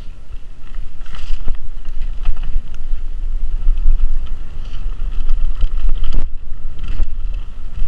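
Mountain bike riding fast down a dirt forest singletrack: heavy wind rumble on the microphone over tyre noise, with several sharp knocks and rattles from the bike over bumps.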